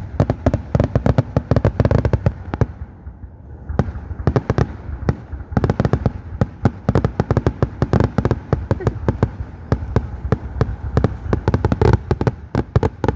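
Fireworks going off in a rapid barrage of bangs and crackles, with a brief lull about three seconds in.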